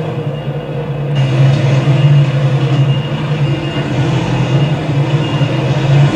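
New Iveco tractor unit's 13-litre diesel engine running steadily under load as the truck reverses up onto a low-loader trailer, a constant low drone.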